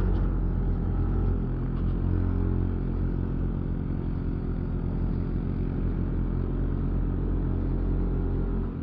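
Vehicle engine running steadily under load, pulling up a steep uphill road.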